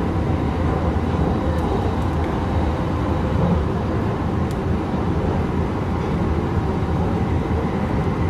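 Yongin EverLine light-rail car running between stations, heard from inside the car: a steady low rumble of the wheels on the rails and the running gear.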